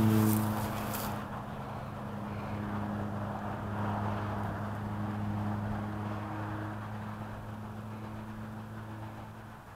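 A motor droning steadily with a low hum and its overtones, slowly fading and dropping out near the end. A brief crackle sounds in the first second.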